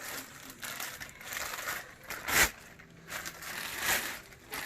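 Plastic bag crinkling and rustling as a new air rifle wrapped in it is handled, with a sharp, loud crackle about halfway through.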